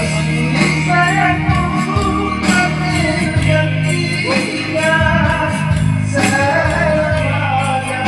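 Music from a wistful Malay song: a melodic line of held, bending notes over a steady bass, with light jingling percussion.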